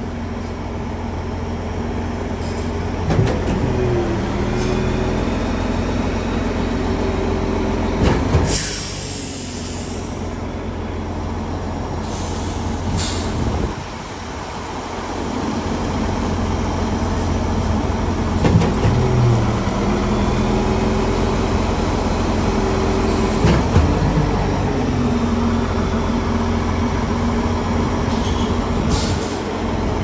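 Diesel engine of a Mack truck-mounted Schwing concrete pump running steadily under load. A knock sounds every few seconds, and there is a brief hiss about eight seconds in.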